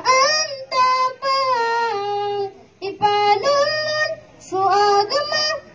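A boy singing solo without accompaniment into a handheld microphone, a Maranao song in long held notes that glide between pitches. He breaks briefly for breath twice, about three seconds in and again past the four-second mark.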